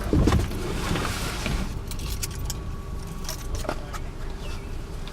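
Car keys jingling and a few short clicks from handling them, over a car's steady low rumble.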